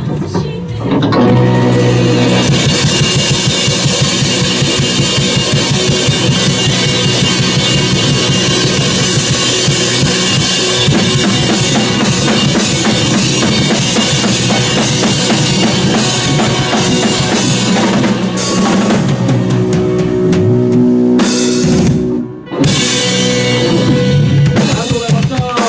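Rock music played on a drum kit with bass drum and guitar, without vocals. The music stops abruptly for a moment about 22 seconds in, then comes back in.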